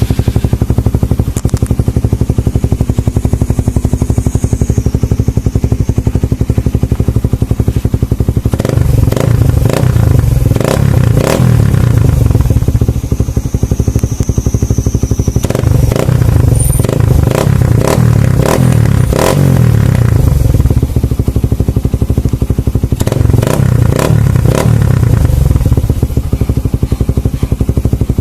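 Suzuki Raider 150's single-cylinder four-stroke engine, through an Apido Power Pipe aftermarket exhaust with its silencer insert removed, idling and then revved in short blips. It idles steadily for about eight seconds, then is blipped in four bursts with idle between them, the last starting near the end.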